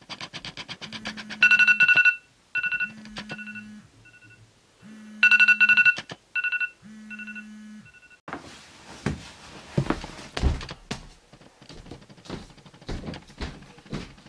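iPhone alarm ringing, its tone and a low vibration buzz repeating in two cycles, then stopping about eight seconds in. Rustling and soft thumps follow, ending in bare footsteps on a wooden floor.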